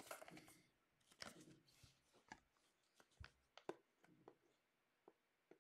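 Quiet handling noises of a shrink-wrapped cardboard trading card box being picked up and turned in the hands: soft rustles and light taps, busiest in the first couple of seconds and then only a few scattered clicks.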